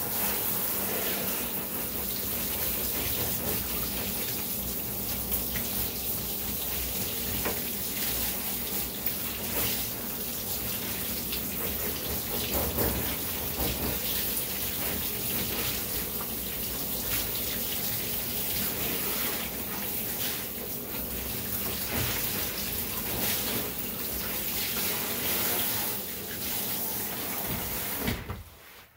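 Steady rush of running water in a dog-grooming tub, rinsing a Yorkshire Terrier's coat after its bath. It stops about a second before the end.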